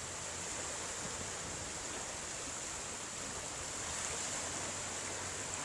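Steady wash of sea surf on a beach.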